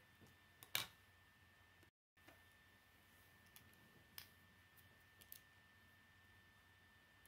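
Plastic Lego bricks clicking as they are pressed together by hand: a few sharp, separate clicks, the loudest just under a second in and others about four and five seconds in. A faint steady high tone runs underneath, and the sound drops out completely for a moment about two seconds in.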